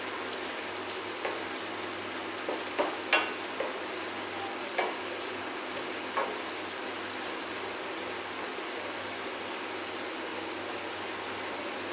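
Thick, cooked-down mutton gravy sizzling in a steel kadai while a wooden spatula stirs it, the spatula knocking and scraping against the pan a few times in the first six seconds. After that, a steady sizzle.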